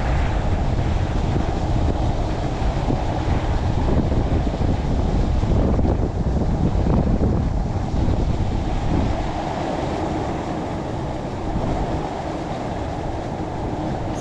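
Wind buffeting the microphone: a steady low rumbling noise that eases off somewhat about nine seconds in.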